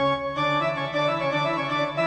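Organ music: a run of quick keyboard notes that comes in suddenly, after a held chord has died away.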